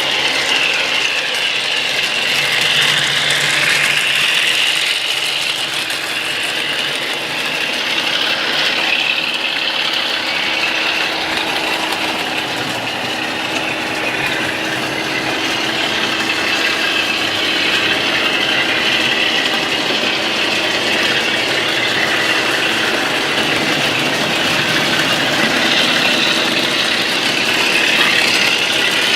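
N gauge model train running on the layout's track: a small electric motor whirring with the wheels clattering along the rails, the sound growing louder and fainter as it passes.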